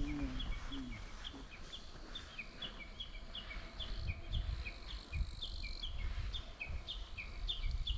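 Steady train of short, slightly falling chirps, about three a second, alternating between two pitches, over a low rumble of wind on the microphone.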